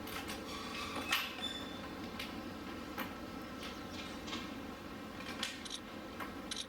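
Malayan sun bear eating while lying down: irregular crunching clicks of chewing, the sharpest about a second in, over a steady low hum.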